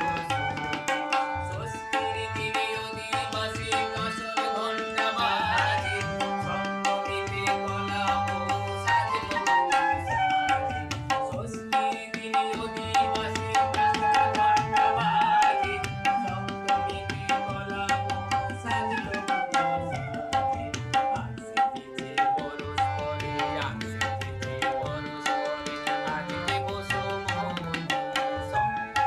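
Tabla and harmonium playing together: a fast, steady run of tabla strokes with the bass drum's deep notes beneath, under the harmonium's held reedy notes and melody.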